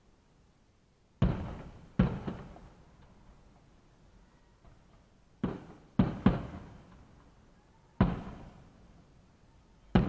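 Aerial fireworks bursting: about seven sharp bangs in irregular groups, each with an echoing tail. They sound muffled, picked up by a dashcam microphone inside a parked car.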